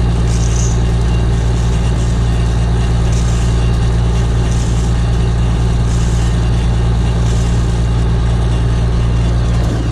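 John Deere combine running steadily while shelling corn. It gives a constant engine and machinery drone with a strong, even low hum.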